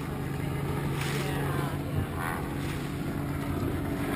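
Motor of a small harbour tender running steadily, a low hum mixed with wind and water noise on the camera, with a brief knock about two seconds in.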